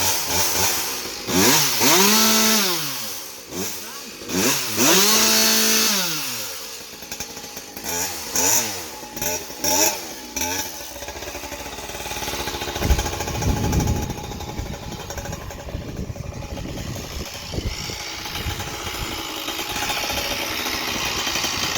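Husqvarna 572XP two-stroke chainsaw fitted with a modified expansion-chamber racing pipe, revved up and let drop twice, then blipped several quicker times, before settling into a steady, heavier run from about halfway. The saw is running on the pipe built for the 660, which it does not like: too aggressive for its porting.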